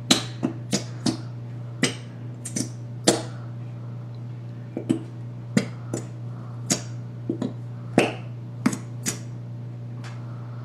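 A run of sharp, irregular taps and clicks, more than a dozen at about one or two a second, as a plastic glue container is handled and knocked over a mixing bowl to get the slow glue out. A steady low hum runs underneath.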